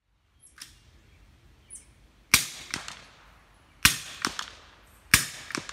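Gunfire from a 300 AAC Blackout AR pistol: two faint sharp cracks, then three loud shots about a second and a half apart, each followed by an echo off the range.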